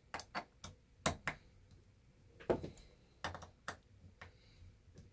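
A hand-turned hex driver working a screw in an RC car's chassis plate: a dozen or so sharp, uneven small clicks and ticks as the tool is turned and re-gripped.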